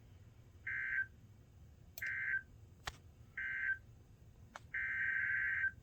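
NOAA Weather Radio SAME data bursts: three short, buzzy two-tone bursts about a second apart, the end-of-message code that closes an alert, then about five seconds in a longer burst, the start of the next alert's header code.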